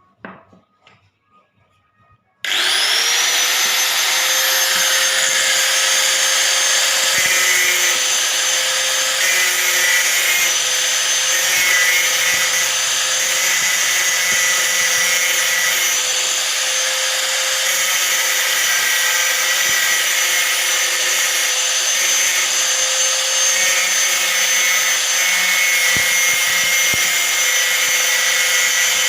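Electric hand angle grinder switched on about two seconds in, spinning up quickly to a steady high whine and then running, its disc grinding a rusty iron nail.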